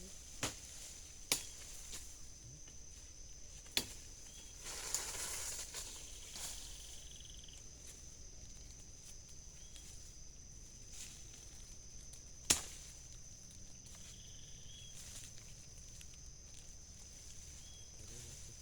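Night-time forest ambience: a steady high insect drone with occasional short chirps, broken by a few sharp clicks or snaps and a brief rustle about five seconds in.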